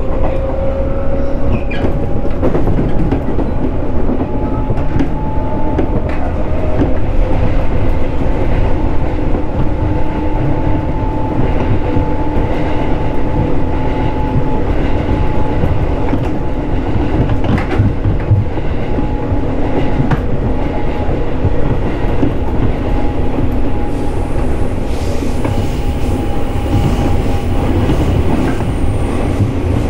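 Running sound of a JR 211 series electric train heard from inside the car: a steady rumble of wheels on rail with clickety-clack at the rail joints. A whine rises slightly in pitch over the first couple of seconds, then holds steady.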